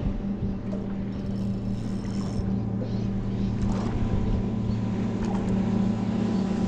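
Small boat's motor running steadily with a low, even hum.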